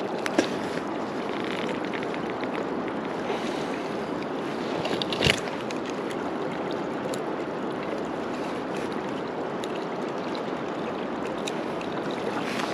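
River water running steadily, with a couple of sharp clicks, the loudest about five seconds in.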